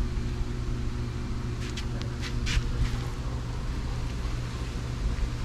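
A fillet knife scraping a few short strokes into a partly frozen redfish, over a steady low mechanical hum.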